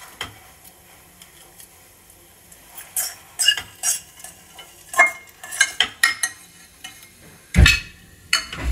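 A wooden-handled masher and hands stirring and pressing a sticky date-and-dry-fruit mixture in a stainless steel kadai: scattered scraping and metal clinks, then two heavy dull thumps near the end.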